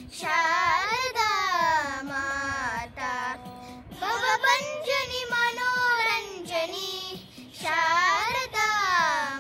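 Two young girls singing a bhajan unaccompanied, long phrases that glide up and down in pitch with short breaks between them.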